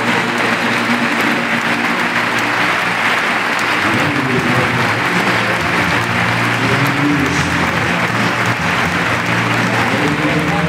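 Stadium crowd applauding and cheering, steady throughout. Underneath runs music of long held low notes, which shift to a new chord about four seconds in.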